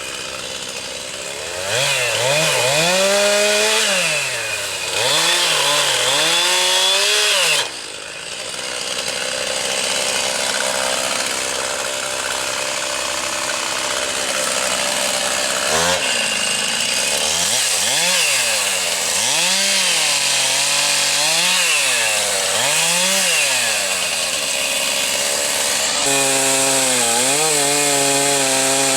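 Chainsaw revving up and down again and again while cutting wood, its pitch rising and falling with the throttle; near the end it settles to a steady pitch.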